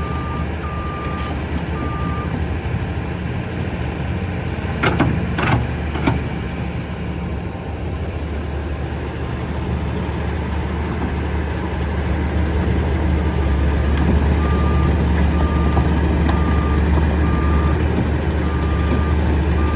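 Kobelco SK210 excavator's diesel engine running steadily, its warning alarm beeping in a repeating single-pitched pattern at the start and again over the last third as the engine grows louder. About a quarter of the way in come three loud clanks in quick succession.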